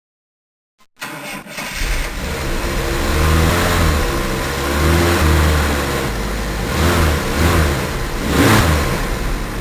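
Car engine starting about a second in and then revved up and down several times.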